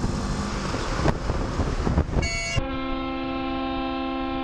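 Motorcycle riding noise of engine and wind, then about two seconds in a short horn toot followed by a long, steady horn blast, a warning at a car cutting into the lane ahead.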